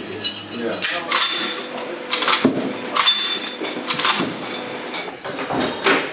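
Workshop clatter of metal parts being handled: about half a dozen sharp clanks and knocks, several of them ringing briefly.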